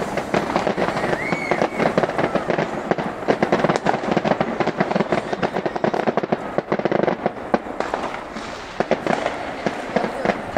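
Fireworks display: a dense, rapid barrage of crackling and popping, many reports a second, easing slightly near the end.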